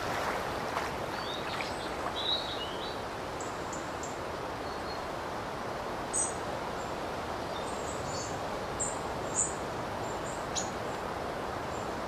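Outdoor ambience: small birds chirping now and then, in short high calls, over a steady rushing background noise.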